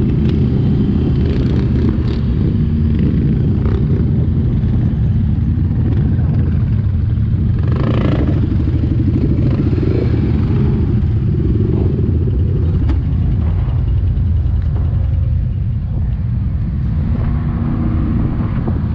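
ATV engine running steadily on a trail ride. The engine note shifts with the throttle, and a brief higher burst comes about eight seconds in.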